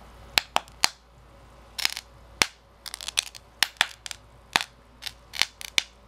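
Bubbles of HHO (oxyhydrogen) gas on the surface of water in a bucket igniting one after another under a lighter flame: a string of sharp pops at irregular intervals, some coming in quick clusters.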